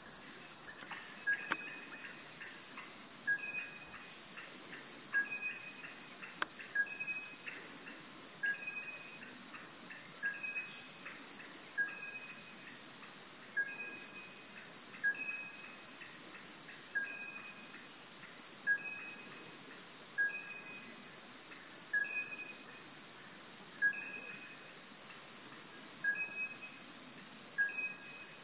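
Forest ambience: a steady high-pitched insect drone, with a short two-note call, higher then lower, repeating about every two seconds from an unseen animal.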